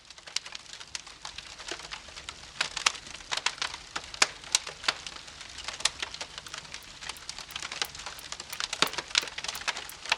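Campfire crackling: irregular sharp pops and snaps over a soft hiss.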